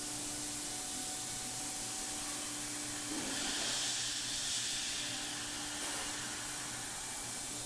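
Thermwood five-axis CNC router running while machining a polyethylene part: a steady hiss with a low, even hum underneath. About three seconds in, the hiss swells louder and higher for a couple of seconds, then settles back.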